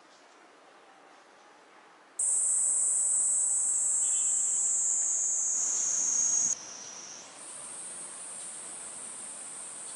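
Cicadas singing: a high, steady buzz that comes in suddenly about two seconds in, loud until past the middle, then drops to a quieter buzz that carries on.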